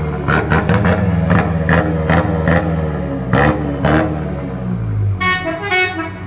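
Canter truck's diesel engine running loud through a remote-controlled open exhaust, with a quick rhythmic pulsing of sharp blips for the first few seconds, then settling. Near the end come two short horn toots.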